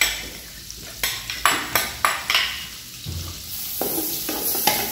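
Metal spoon knocking and scraping against an aluminium pot as mashed cooked cassava is scooped in, several sharp knocks in the first half. Margarine melting in the pot sizzles underneath, the hiss growing in the second half.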